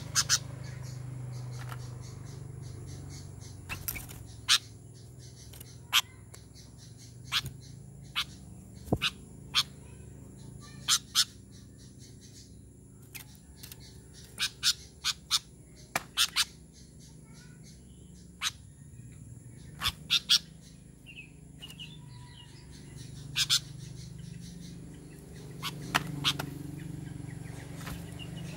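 Sooty-headed bulbul (kutilang) giving short, sharp chip calls at irregular intervals, often in quick pairs or threes, over a faint steady low hum.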